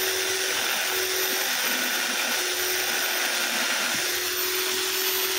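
Electric drill running steadily, spinning an abrasive wheel against a hand-held camshaft lobe with a steady grinding hiss. The drill's tone falters briefly a few times as the lobe presses on the wheel. The cam lobe's peak is being ground down to lower its lift.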